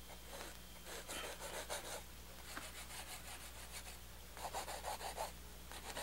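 Faint rubbing, scraping strokes of a painting tool working oil paint on a canvas: a run of short strokes about a second in and another near the end, over a low steady electrical hum.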